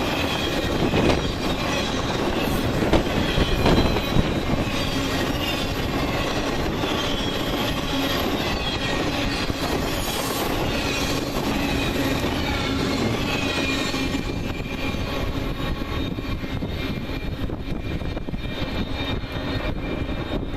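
Train passing on the rails: a steady rumble of wheels on track with high-pitched wheel squeal. The squeal dies away about two-thirds of the way through and the noise eases off a little.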